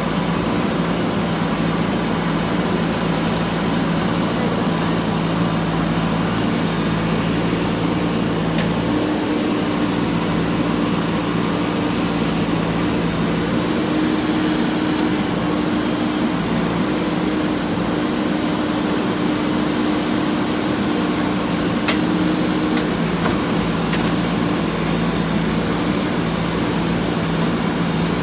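Four-cylinder diesel engine of a JCB 3DX backhoe loader running steadily while it digs. Its note steps up about nine seconds in and falls back about three-quarters of the way through, with a brief clank near the end.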